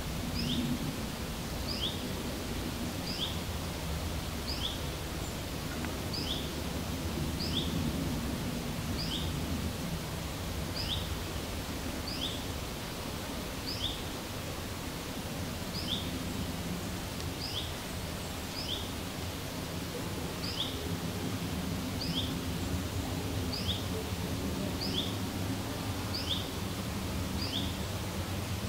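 A small bird repeating a short, high two-note call about once a second, without pause, over a steady low rumble.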